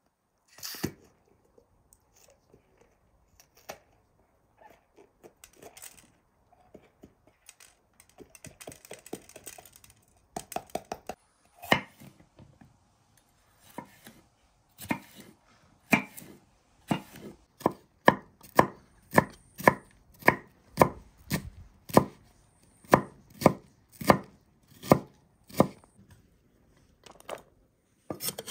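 Kitchen knife cutting a yellow bell pepper on a wooden cutting board: scattered soft slicing and handling sounds at first, then from about halfway steady chopping strokes on the board, about two a second.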